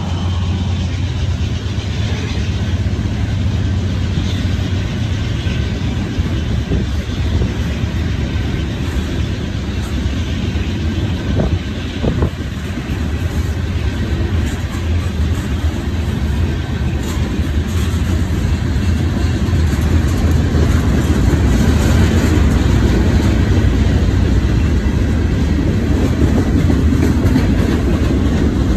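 Freight train cars rolling past at close range: a steady rumble and clatter of steel wheels on the rails, growing a little louder about two-thirds of the way through.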